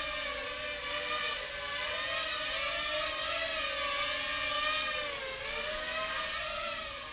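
Micro FPV quadcopter's motors and propellers whining in flight, the pitch wavering up and down with the throttle and dipping briefly about five seconds in.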